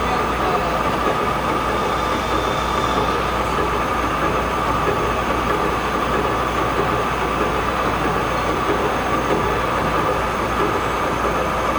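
Metal lathe running steadily, a continuous mechanical noise with a steady whine held throughout.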